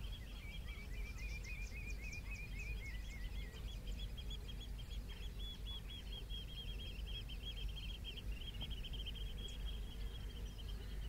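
Outdoor ambience of small songbirds singing continuously, one chattering in rapid repeated notes throughout while another twitters for the first few seconds, over a steady low rumble.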